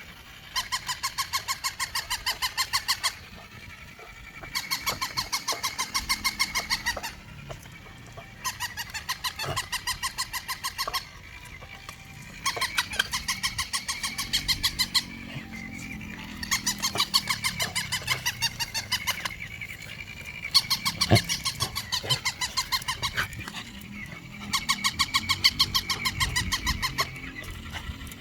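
Toy dog giving out rapid, mechanical-sounding squeaky yaps in repeated runs of two to three seconds, with short pauses between runs. Some soft low rustling and a couple of knocks in the second half.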